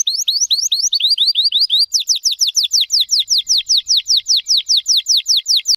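Domestic canary singing a fast trill of rising notes that switches, a little under two seconds in, to a slower run of clear falling notes at about six a second.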